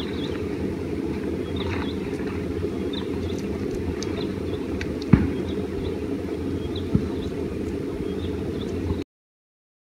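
Wind rumbling on the microphone, with two sharp knocks about five and seven seconds in from the tent poles being handled and fitted together; the sound cuts off suddenly near the end.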